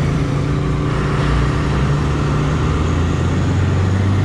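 Keeway RKS 100 motorcycle's small single-cylinder engine running steadily at low road speed, with road noise, its pitch shifting slightly about three seconds in.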